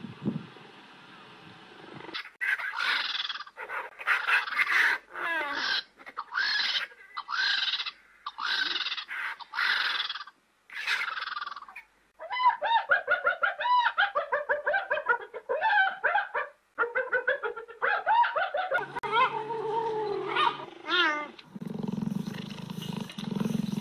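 Wild animal calls. First comes a string of separate pitched cries, each under a second. Then a faster run of short chattering calls, and a low rumble near the end.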